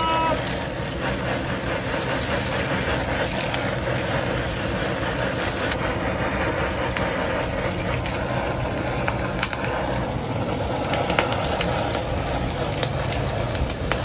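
Handheld butane blowtorch flame hissing steadily over skewered tuna sizzling in a tray of hot oil, with a few light clicks of metal tongs against the tray.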